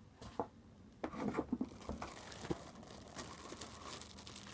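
Plastic packaging being handled and peeled by hand, crinkling and tearing in short rustles, busiest about a second in and then fainter.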